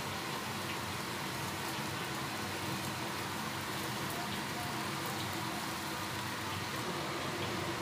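Tap water pouring in a steady stream into a large wok filled with water and raw pork pieces, splashing on the surface.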